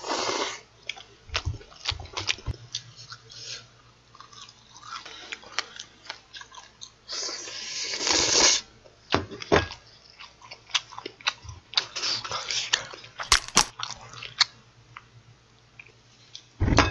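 Close-up slurping and chewing of spicy cold bibim noodles, with many wet mouth clicks and smacks, and one long slurp about halfway through. A heavy thump comes near the end.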